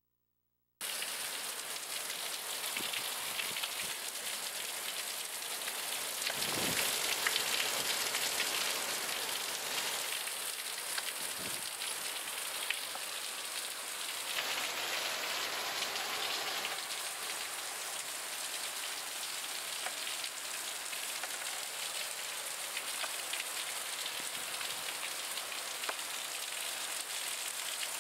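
Heavy rain pouring down, a steady dense hiss of downpour on pavement and standing water. It starts abruptly about a second in and swells slightly a few seconds later.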